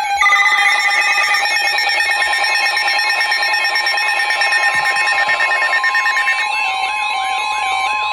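Emergency alert attention signal: several electronic alarm tones layered together, sounding continuously and loudly, with steady beeps under repeating warbling sweeps. About two thirds of the way in, a steady tone near 1 kHz joins them.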